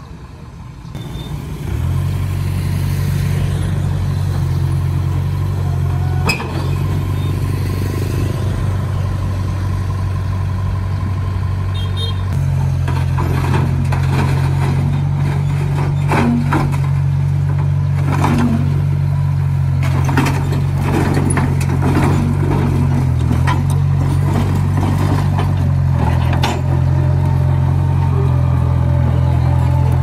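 Small Komatsu crawler bulldozer's diesel engine running steadily, getting louder about two seconds in, as the dozer drives down off a trailer onto the ground. Through the middle part, a run of short metallic knocks and clanks comes from the tracks on the steel ramps.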